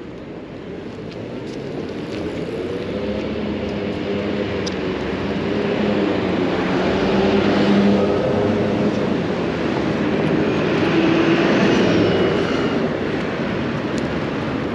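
Engine of a passing vehicle, a steady hum that grows louder over about eight seconds, swells again a few seconds later, then eases off.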